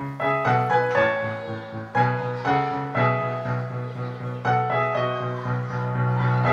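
Background music played on piano: a melody of struck notes over sustained lower notes.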